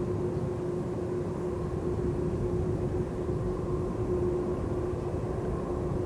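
Boeing 747 freighter's jet engines running at low power, a steady whine over a low rumble, as the aircraft rolls onto the runway before its takeoff roll.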